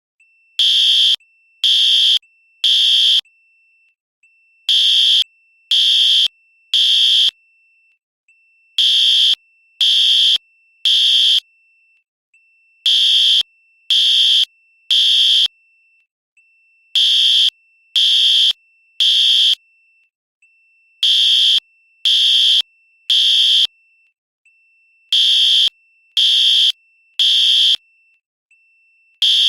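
Fire alarm sounding the temporal-three evacuation pattern: three loud, high-pitched beeps about a second apart, then a pause, repeating about every four seconds.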